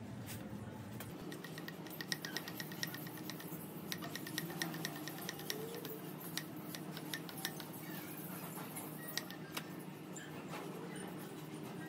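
Rapid, evenly spaced clicking, about five clicks a second for a few seconds, then scattered clicks: a mini hand pump's flexible hose being handled on an electric scooter tire's valve.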